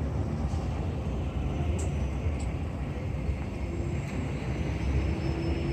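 Steady low rumble of city street traffic, with a few faint ticks and a steady hum that comes in about halfway through.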